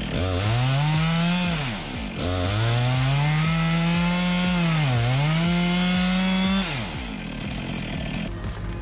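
Chainsaw engine revving up to full throttle and holding, twice. The first run lasts about a second and a half. The second lasts about four seconds, with a brief dip in pitch partway through, and the saw drops back to idle near the end.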